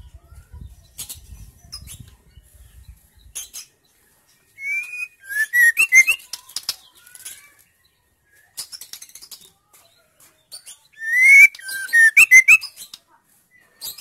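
Female white-rumped shama (murai batu) singing two short bursts of quick, twisting whistled notes mixed with rapid harsh clicks, about five and eleven seconds in. Between the bursts come scattered soft clicks and brief wing flutters.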